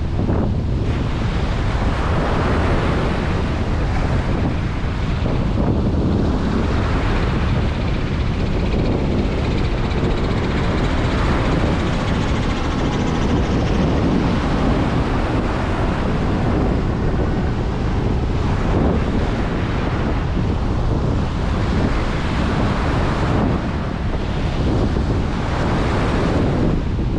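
Ocean waves breaking and washing on a beach, in steady surf that swells and eases every few seconds, with strong wind buffeting the microphone.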